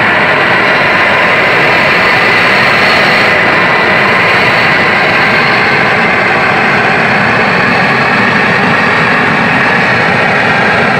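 Handheld gas torch running at full flame, a loud steady rushing hiss, as it is played over a tray of pyrolyzed BGA/RAM chips to burn off the black residue left on them.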